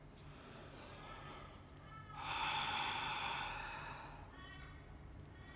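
A woman breathing audibly: a soft inhale, then a louder, longer exhale about two seconds in that lasts about a second.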